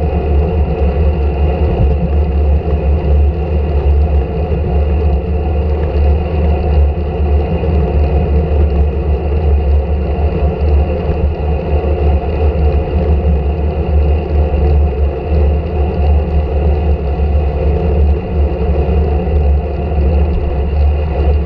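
Wind buffeting the microphone of a camera on a road bike's handlebars while riding at speed: a loud, steady low rumble, with tyre noise from the asphalt.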